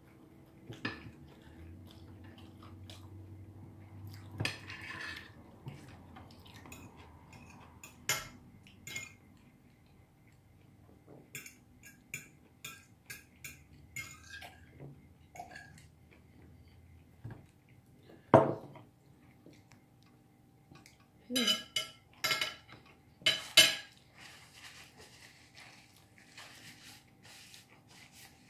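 Knives and forks clinking and scraping on dinner plates as people eat: scattered irregular clinks, a louder knock about two-thirds of the way through, and a cluster of loud clinks near the end.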